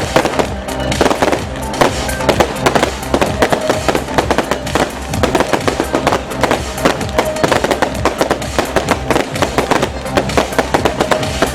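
Fireworks bursting and crackling in rapid, dense succession over loud electronic music.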